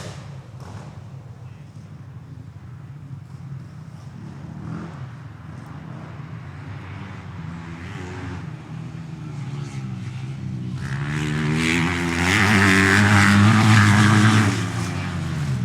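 Motorcycle engine running, rising in pitch and getting louder over several seconds. It is loudest a little after the middle, then falls back near the end.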